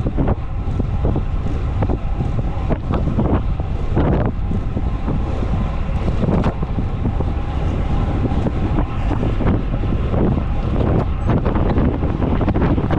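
Wind rushing and buffeting over the camera microphone of a road bike riding at about 34 km/h, loud and steady with irregular gusts.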